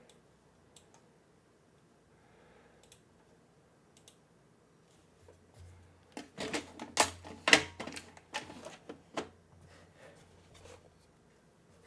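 Typing on an Akko M1 V5 mechanical keyboard with Akko Cilantro long-pole tactile switches, aluminium case and doubleshot PBT keycaps, stock. A few scattered key presses, then a fast flurry of keystrokes about six seconds in that lasts about three seconds, then a few last presses.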